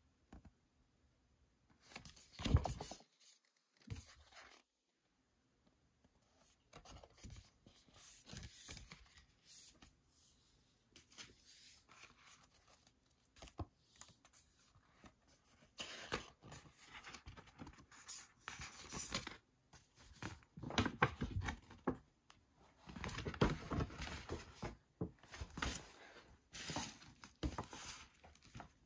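Paper rustling and crinkling in uneven spurts as a folded album poster and printed brochure are handled and opened out, louder in the second half.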